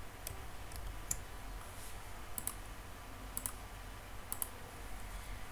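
Computer mouse clicking: a handful of sharp clicks, several in quick pairs, coming about once a second.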